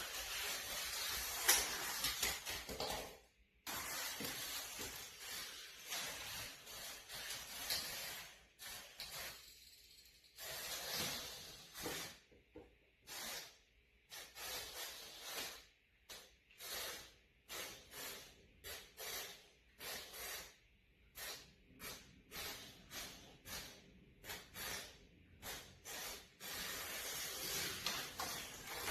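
Tiny 1:64-scale remote-control toy car run in many short stop-start bursts, a hissing whir of its small electric motor and wheels.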